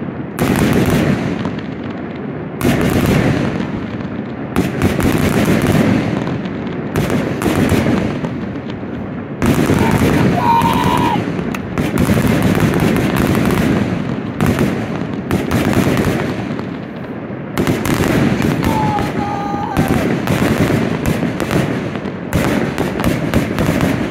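Fireworks display firing aerial shells in a rapid barrage: loud bangs and booms following one another with hardly a pause, several close together at a time.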